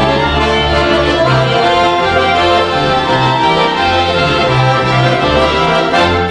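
Folk band music led by accordions holding chords, with a bowed double bass playing bass notes in a steady pulse underneath.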